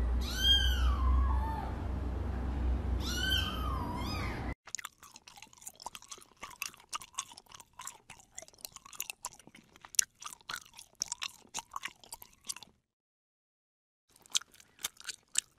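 A kitten meows twice, each call rising and then falling in pitch. Then a young kitten sucks at a milk bottle's nipple, a long run of small irregular wet smacks and clicks with a short pause near the end.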